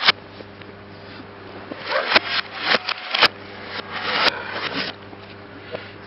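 Computer case panels being stamped on and crushed underfoot on pavement: a sharp stomp at the very start, then a run of crunching, scraping and crumpling from about two to five seconds in, with two sharp cracks among them.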